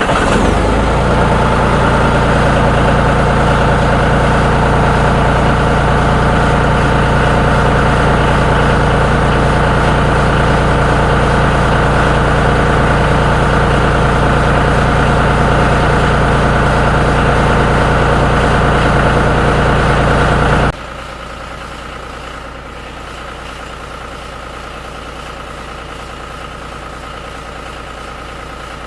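John Deere 5055D tractor's three-cylinder diesel engine idling steadily just after starting, heard up close. About 21 seconds in the sound drops abruptly to a lower level and the engine keeps idling.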